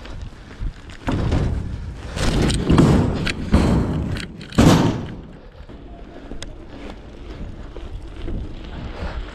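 BMX bike riding over concrete skatepark ramps: loud tyre and rolling noise swells from about a second in, with a heavy thump of the wheels hitting the ramp about halfway through. The bike then rolls on more quietly.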